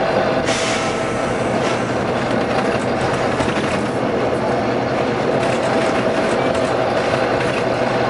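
Volvo B9TL double-decker bus running with a steady hum and rattle, and a sharp hiss of compressed air about half a second in that lasts about a second.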